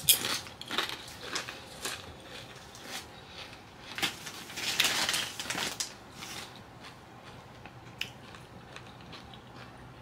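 Tostitos Scoops tortilla chips crunching as they are bitten and chewed, a run of crisp crackles that is loudest about four to six seconds in.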